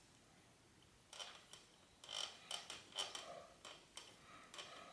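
Faint, scattered small clicks and rubbing of hands working grease onto a bicycle suspension fork's upper tubes, starting about a second in.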